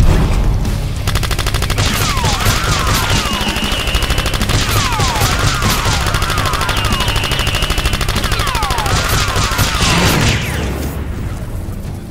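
Edited-in automatic gunfire sound effect: a blast at the start, then a long, rapid stream of shots with repeated swooping whistles over it, fading out near the end.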